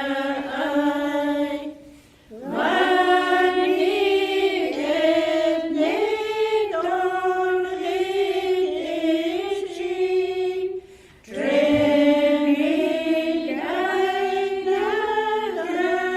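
Voices singing unaccompanied, choir-like, in long held phrases, with two short breaks about two seconds in and about eleven seconds in.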